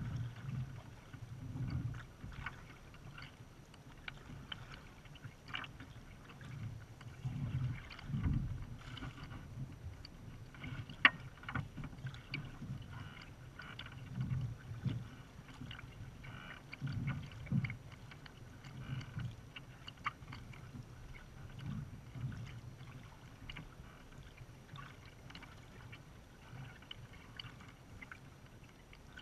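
Sea kayak being paddled: water swishing and sloshing against the hull and paddle every second or two, with small drips and splashes from the paddle blades. One sharp tick about a third of the way through.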